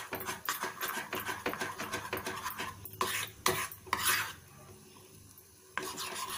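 A metal spoon stirring and scraping through thick melted chocolate in an aluminium pan, blending melted white and dark chocolate, with quick repeated strokes against the pan. The stirring pauses briefly a little past the middle, then starts again.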